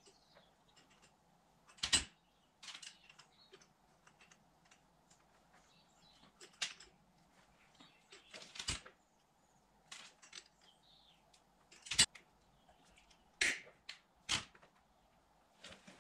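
Sharp metallic clicks and taps of pliers working on a motorcycle drive chain, scattered irregularly, the loudest about two seconds in and about twelve seconds in.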